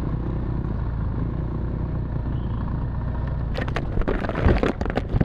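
BMW R1200 GS Adventure's boxer twin engine running steadily at low speed. From about three and a half seconds in comes a cluster of sharp knocks and scrapes as the bike jolts over rough ground and pushes through brush at the trail's right edge.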